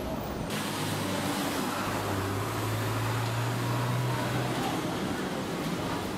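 Steady background din of a busy shop, with a low hum that comes in about a second in and fades out after a few seconds.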